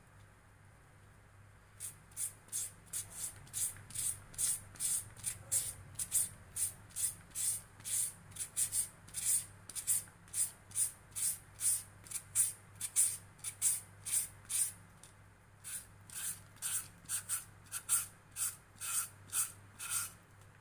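Hand shredder grating a carrot: steady back-and-forth rasping strokes, about two and a half a second. They start about two seconds in and stop briefly about three quarters of the way through. A faint low hum runs underneath.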